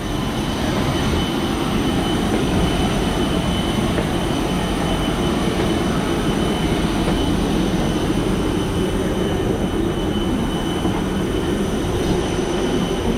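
Steady, unbroken drone of a passenger airliner, with a thin steady high whine over it: the engines and air system running while the plane is parked before departure.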